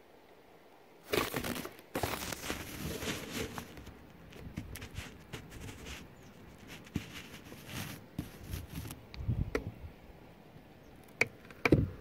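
Handling noise at a wooden nest box: scraping and rustling against the wood from about a second in, then scattered knocks and rubbing, and a few sharp knocks near the end.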